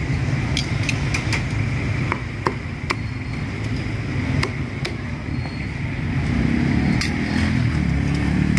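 Street traffic rumbling steadily, louder in the last couple of seconds as a vehicle passes close, with scattered sharp clinks and knocks over it.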